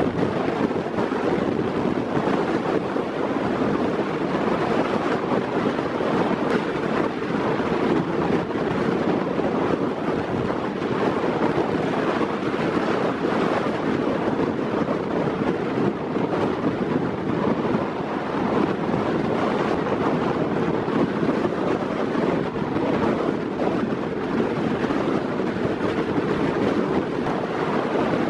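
Storm wind blowing hard across the microphone in a steady, unbroken rush, with rough, wind-whipped water beneath it.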